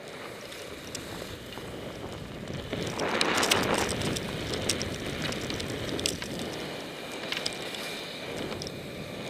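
Skis sliding and hissing over snow, with wind noise on the microphone. It swells to a louder hiss of scraping snow about three seconds in and lasts a second or two, with scattered clicks.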